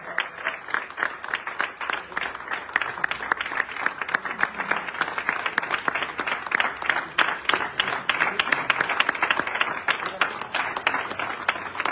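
Audience applauding steadily, many hands clapping fast and irregularly.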